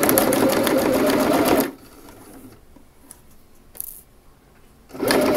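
Domestic electric sewing machine stitching a seam in two short runs of under two seconds each, with a pause of about three seconds between; the second run starts near the end.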